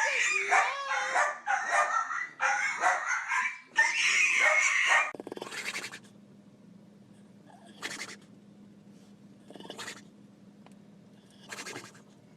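A dog vocalizing loudly in wavering, high yowling calls for about five seconds, then an abrupt cut to a low steady hum with a soft hissing sound about every two seconds.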